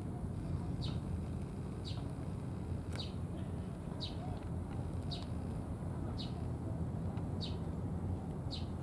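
A bird calling a short, high note over and over, about once a second at an even pace, over a steady low background rumble.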